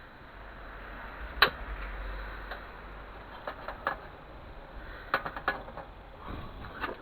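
A few sharp clicks and light taps of hard objects being handled: the loudest about a second and a half in, then scattered ones and a quick cluster of three or four about five seconds in.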